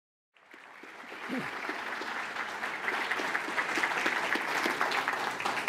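Audience applauding, starting about a third of a second in, building over the first second and then holding steady.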